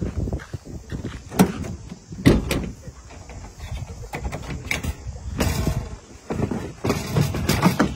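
A series of knocks and clunks with bursts of rustling noise from handling at the back of a pickup truck while dogs are loaded into it.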